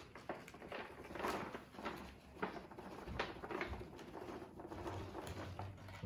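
Milled black powder sliding off a folded sheet of kraft paper into a plastic zip-top bag, with the paper and the bag rustling and crinkling in short irregular strokes.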